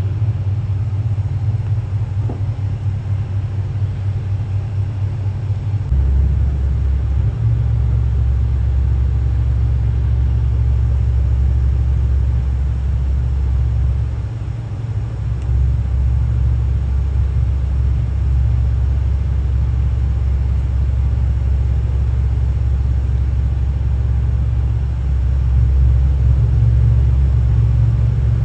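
Heesen superyacht's engines rumbling at low speed while it manoeuvres stern-first to moor. The rumble deepens and grows louder about six seconds in, dips briefly midway and strengthens again near the end, as the power is changed.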